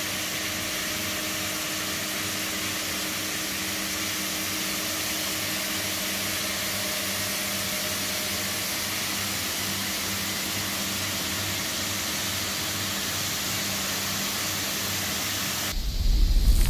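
A machine running steadily: an even hiss with a faint hum underneath. About a second before the end it gives way abruptly to a louder, deeper sound.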